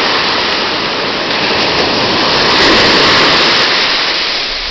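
Ocean surf breaking and washing through the shallows: a steady rush of white water that swells a little past the middle and eases near the end.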